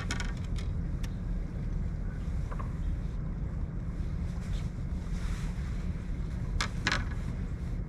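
Steady low rumble of a fishing boat on the water with wind buffeting the microphone, broken by a few brief sharp clicks near the start and again about seven seconds in.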